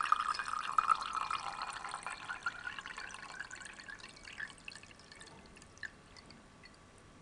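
Aqueous layer draining from a glass separating funnel's stopcock into a vessel below: a trickle of liquid, loudest at first, that thins over about five seconds into scattered drips as the layer runs out.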